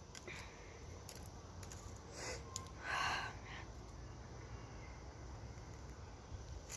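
Quiet woodland background with a few faint clicks and two short breathy puffs close to the phone's microphone, the louder one about three seconds in.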